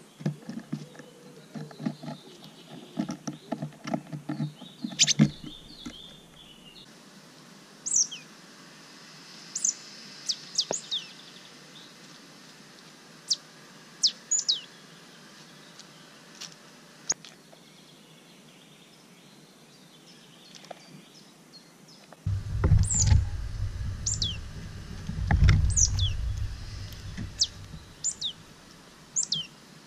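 Wild birds giving many short, sharp, downward-sliding chirps. In the first few seconds there is a quick run of small taps and rustles of seed husks in a wooden feeder. About two-thirds of the way through, a red squirrel climbing into the feeder makes loud, low scrabbling and knocking against the wood for several seconds.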